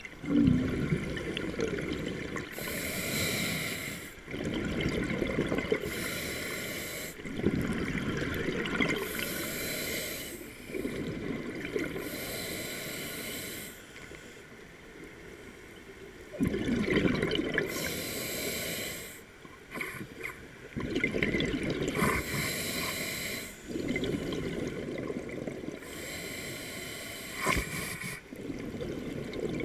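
Scuba diver breathing through a regulator underwater: a hissing inhale, then a gurgling rush of exhaled bubbles, repeating slowly about every four seconds.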